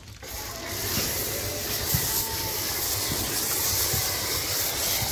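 High-pressure plunger-pump washer spraying: a steady hiss of the jet with a low rumble underneath. The spray cuts out briefly right at the start, then resumes.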